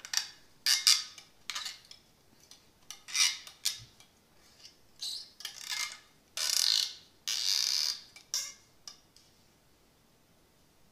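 Metal remover tool scraping and grinding inside the barrel of a bass trombone slide, a series of irregular rasps, the longest two near the middle, as the old worn felt or cork is cut and dug out. The scraping stops about nine seconds in.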